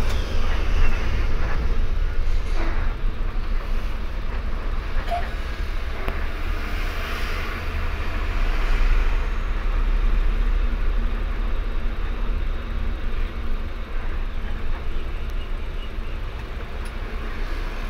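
Steady low rumble of a moving intercity bus, engine and road noise heard from inside the cabin, with no horn sounding.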